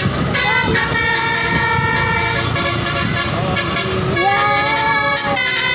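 Tour bus's Basuri multi-tone 'telolet' air horn playing a tune of long held notes that change pitch a few times, over the rumble of the bus.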